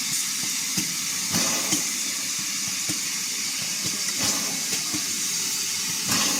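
Steady hiss of escaping steam from the Bulleid West Country class Pacific steam locomotive Eddystone, swelling briefly a few times, with a few short clicks.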